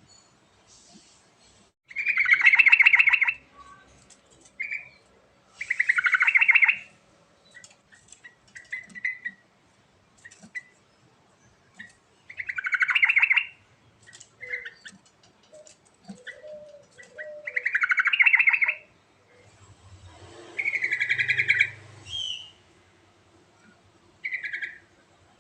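Trucuk (yellow-vented bulbul) singing in the rich, gurgling style kept birds are trained toward. It gives five loud, bubbly phrases of about a second each, several seconds apart, with short single notes in between.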